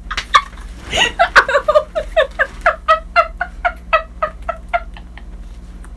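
A person's high-pitched cackling laugh: a run of quick 'ha' bursts, about four a second, that starts about a second in and slows and fades over a few seconds.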